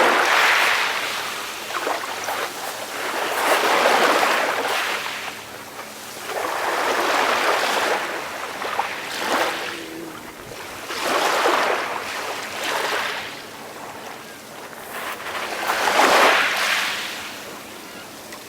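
Calm sea waves washing in, five slow swells about four seconds apart, each building and fading away.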